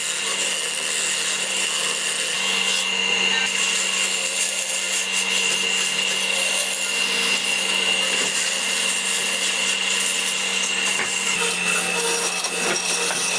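Wood lathe running while a turning tool cuts and rubs against the spinning wood: a steady hum and high tone under continuous scraping.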